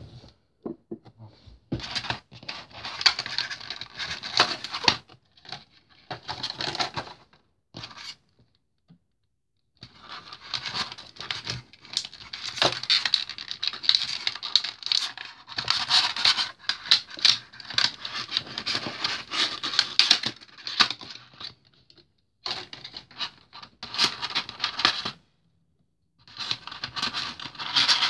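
Plastic packaging of a diecast model airliner being handled: a clear plastic tray and insert crinkling and scraping in irregular bursts, with a few short pauses.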